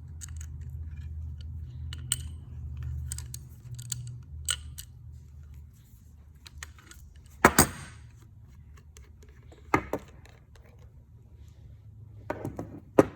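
Small metal parts and tools clicking and clinking as a pressure washer spray gun is taken apart by hand, with a low rumble over the first half. A loud sharp knock about seven and a half seconds in, and smaller ones near ten seconds and near the end.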